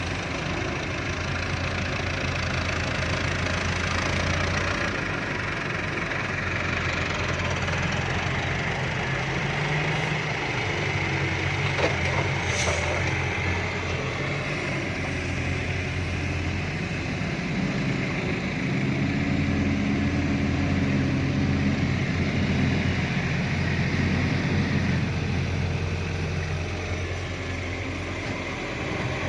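Fiat-Hitachi FH150.3 excavator's diesel engine running, its pitch and level rising and falling in several stretches as it works. A single sharp click about halfway through.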